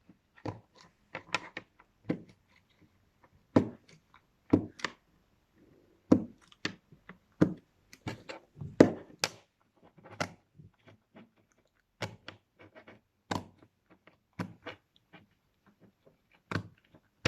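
Plastic poppet (push-pop fidget toy) having its bubbles pressed through one after another: a string of sharp, irregular pops, often in quick pairs or small clusters.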